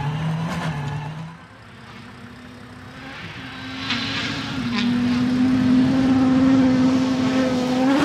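Hyundai i20 WRC rally car's turbocharged four-cylinder engine held at high revs on a gravel stage. It is quieter at first, then grows louder from about three seconds in as the car approaches, with a steady high engine note.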